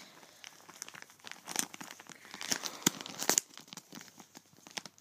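Clear plastic bag crinkling and rustling as it is handled and pulled open, in irregular sharp crackles that are loudest around three seconds in.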